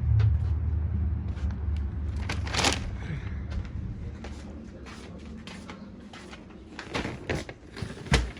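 Groceries being handled and set down: a series of knocks, clicks and rustles, with a low rumble in the first few seconds.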